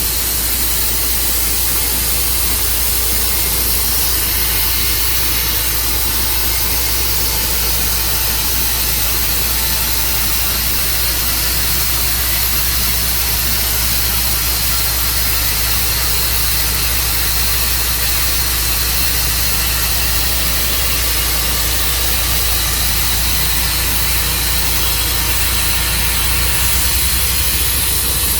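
Tru-Cut sawmill running steadily under power, its engine and blade loud and even throughout, a little louder near the end.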